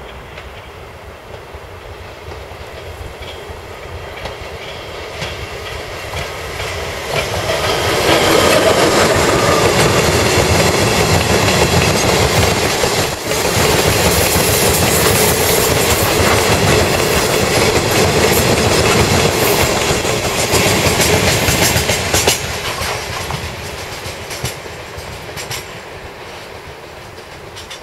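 Electric freight train of limestone hopper wagons hauled by a Chichibu Railway Deki 100 electric locomotive, passing close by. It builds as it approaches, then the wagons' wheels clatter steadily over the rail joints while they roll past, and the sound fades as the train draws away near the end.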